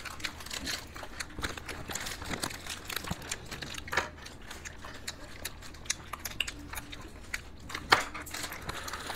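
Plastic ice cream wrappers crinkling and rustling in small scattered crackles, with a couple of sharper crackles about four and eight seconds in.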